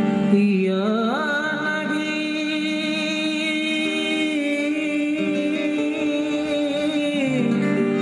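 Male voice singing devotional naat: one long held note that glides up in the first second or so, stays steady, then falls away about seven seconds in, over instrumental accompaniment.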